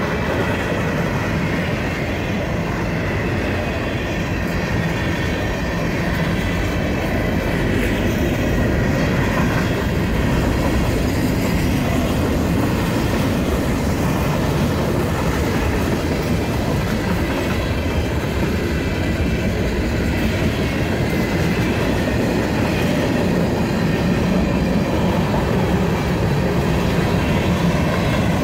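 Freight train cars rolling past, a steady noise of steel wheels on the rails.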